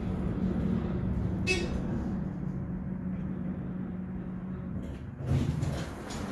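Dover traction elevator car travelling, a steady low hum, with one short high beep about a second and a half in. Near the end comes a sudden bump and rustle.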